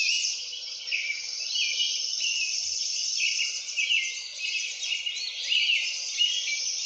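Recorded songbird chirping: a dense, unbroken run of high chirps and twitters, with several calls overlapping.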